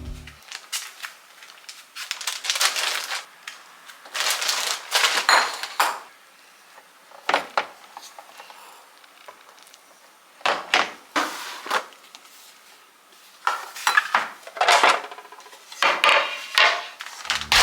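Clinking and clattering of dishes and utensils being handled, in short bursts with quiet pauses between.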